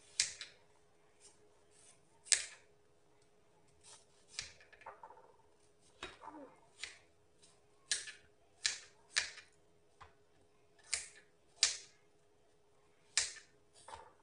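A knife cutting through firm green mango, with about a dozen crisp, irregular snaps, one for each cut. A faint steady hum runs underneath.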